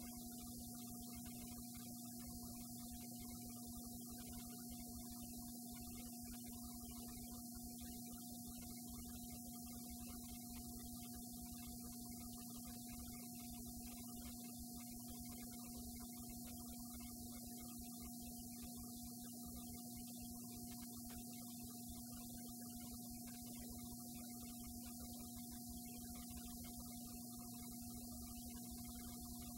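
Steady electrical hum: one constant low tone with a fainter higher one, over a background hiss.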